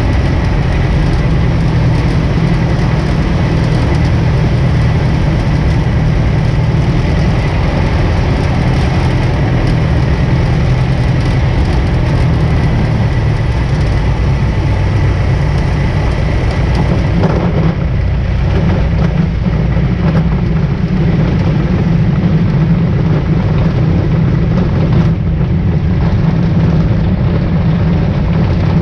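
A 1947 Aeronca Champ's engine and propeller drone steadily at low power through an approach and landing on a grass strip. From a little past halfway the low note grows slightly stronger, and faint scattered knocks come in as the plane rolls over the grass.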